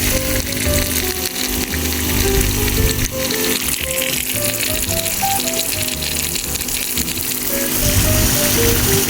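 Background music with a simple melody of short notes and a bass line, over a steady hiss.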